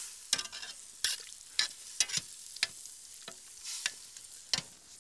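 Metal ladle stirring a liquid stew in a large metal pot, knocking against the pot's sides about every half second, with a faint frying sizzle behind it.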